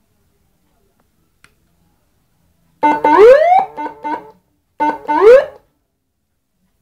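Electronic siren module sounding one of its tones through a 10-watt horn loudspeaker. After about three seconds of silence, it gives a short steady blip, then a quick rising sweep, then a few short beeps. The pattern starts again about two seconds later.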